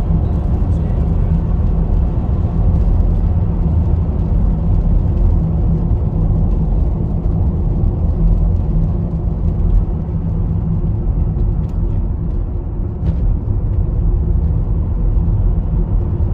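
Car driving along at a steady speed, heard from inside the cabin: a steady low rumble of engine and tyres on a wet road, with a few faint ticks in the second half.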